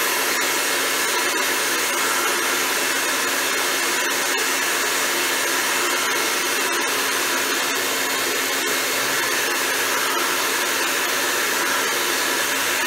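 Two-stage electric blower running steadily: a loud, even rush of air through the venturi tube, with a faint steady hum underneath. The venturi draws air in at the pipe's open mouth.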